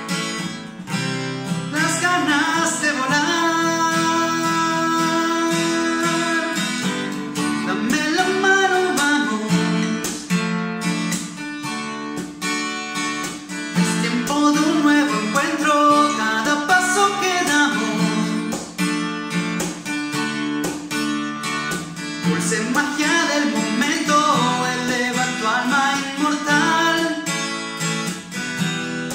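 Acoustic guitar strummed in a steady rhythm of chords, with a man's voice over it at times.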